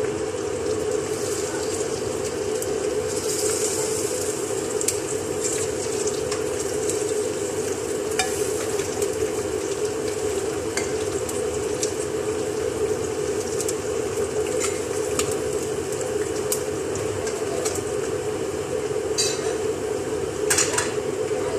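Fried chicken pieces being stirred into a pot of spiced vegetables, the spoon scraping and clinking against the pot now and then, over a steady hum.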